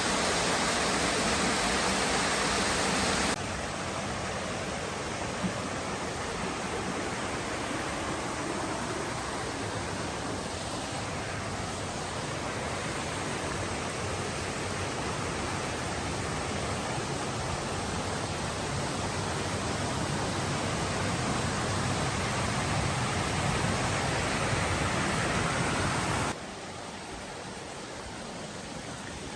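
Steady rushing of creek water, an even hiss with no distinct events; its level drops suddenly about three seconds in and again near the end.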